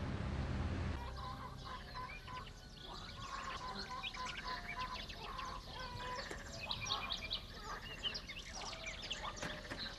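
A minibus's low engine rumble cuts off about a second in, giving way to chickens clucking and small birds chirping.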